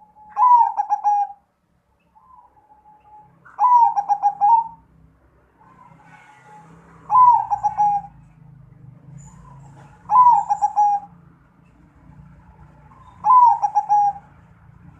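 Perkutut (zebra dove) cooing: five phrases about three seconds apart, each a short opening note followed by a quick run of rolling, stepped coos.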